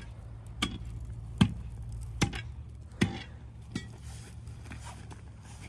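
Ice being struck with a chopping tool: five sharp strikes, about one every 0.8 seconds, that stop about four seconds in. This is testing the pond ice and chipping into it.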